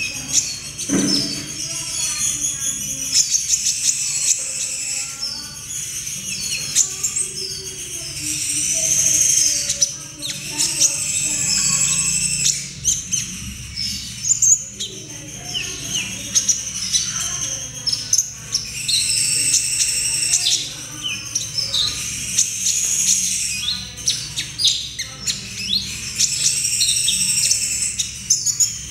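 Young Van Hasselt's sunbird (kolibri ninja) singing: a fast, unbroken run of high chirps, trills and short down-slurred notes, the rambling practice song of a juvenile still learning its song.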